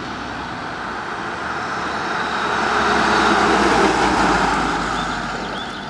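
1957 Chevrolet Bel Air convertible driving past, its engine and tyre noise growing louder to a peak just past the middle and then fading away.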